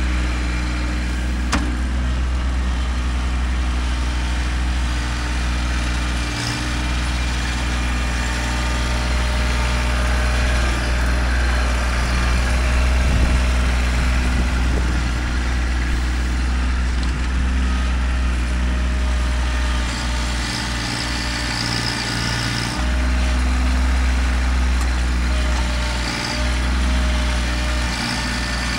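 Kubota tractor's diesel engine running steadily as it works a dirt pile, with a deep steady rumble that briefly dips a few times.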